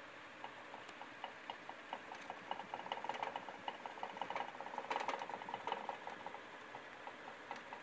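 Rapid light clicking from a small plastic-and-wire hamster cage, starting about half a second in, growing thicker and louder through the middle, then thinning near the end.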